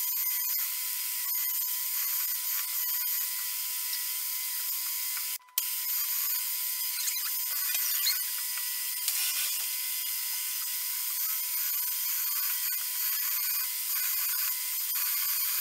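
Milling machine spindle running with a twist drill boring into a metal bar, a steady whine with scratchy cutting noise. It drops out briefly about five and a half seconds in.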